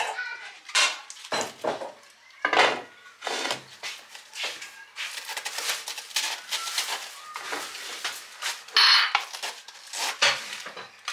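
Crisp cracking and tearing as leaves are pulled off a head of iceberg lettuce by hand, in irregular bursts, with the odd knock of a large bowl on the counter. The loudest snap comes near nine seconds in.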